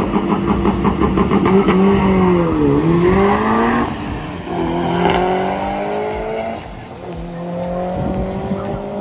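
Drag race car engine at high revs, accelerating hard; its pitch climbs and drops back several times as it shifts up through the gears.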